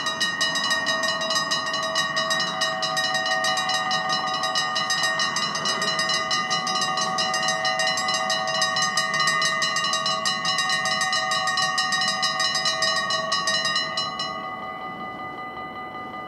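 Electronic warning bells of a Dutch level crossing start ringing at once, a fast, steady, high-pitched ringing; about fourteen seconds in, as the barriers finish coming down, the ringing drops to a quieter level.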